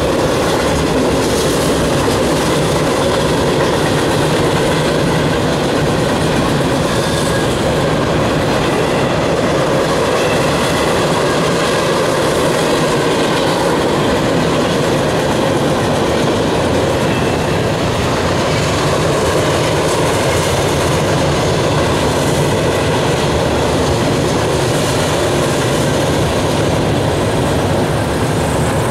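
CSX freight train's tank cars and boxcars rolling past: a steady, loud rumble of steel wheels on rail that holds unchanged as car after car goes by.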